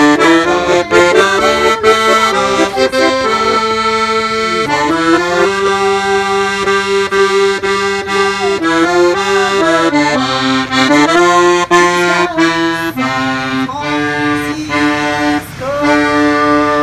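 Button accordion playing a tune, with held chords that change every second or so.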